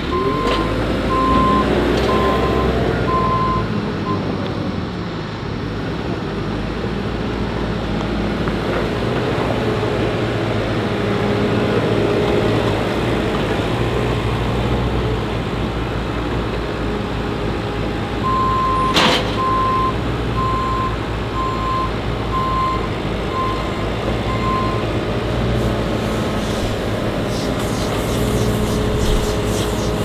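Diesel farm machinery running steadily, with a reversing alarm beeping at the start and again for several seconds in the second half. There is a single sharp knock about two-thirds of the way through.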